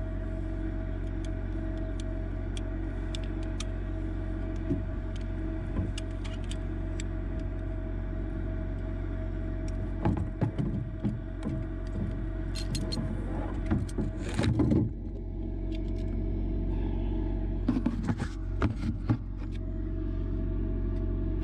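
Bucket truck engine running steadily, with scattered metal clicks and clanks as a come-along and line rigging hardware are released and handled. There are louder bursts of rattling clanks about halfway through and again near the end.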